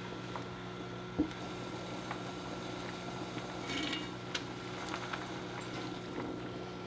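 Home kitchen cooking sounds: food simmering in a pot, with a few light clicks and knocks of utensils against cookware over a steady low hum.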